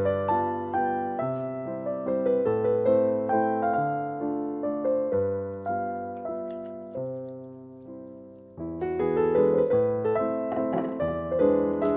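Background piano music: an unhurried melody of single notes over low bass notes. It fades out briefly late on and starts again.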